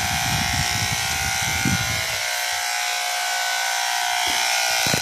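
Electric hair clipper running with a steady buzz as it cuts an elderly man's hair.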